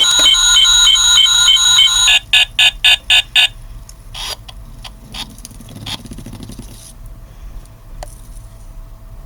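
Electronic sound effects from a light-up toy spinning top's built-in speaker: a loud pulsing alarm-like beeping for about two seconds, then a quick run of short blips, then much quieter with a few faint clicks.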